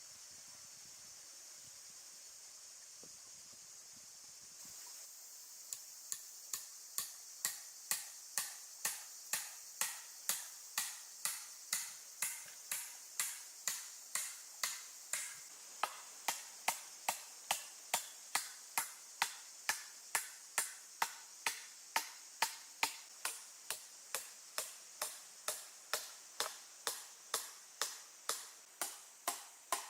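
Steady rhythmic chopping with a blade, about two strokes a second, starting a few seconds in and carrying on without a break.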